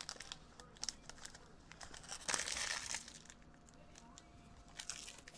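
Wrapper of a trading card pack crinkling as it is torn open and handled, in short crackly bursts, the loudest a little over two seconds in and a smaller one near the end.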